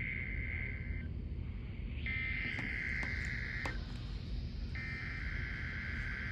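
NOAA Weather Radio SAME header: three bursts of two-tone digital data, each about a second and a half long with a second's gap, the first ending about a second in, the next starting about two seconds in and the last about five seconds in. This header opens a Required Weekly Test. Steady radio hiss and a few clicks lie underneath.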